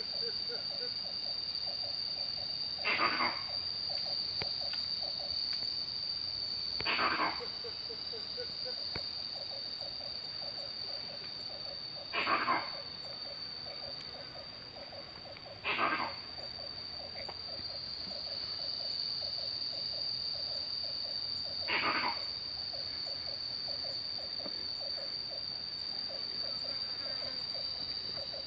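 Lutung (Javan langur) calling: five loud calls of about half a second each, spaced a few seconds apart. Under them run a steady high insect drone and a fast, low pulsing trill of night insects or frogs.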